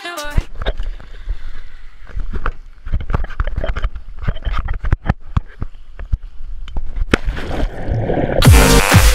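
Muffled underwater sound picked up by a submerged action camera: a low rumble with irregular clicks and bubbling. Electronic dance music swells back in near the end.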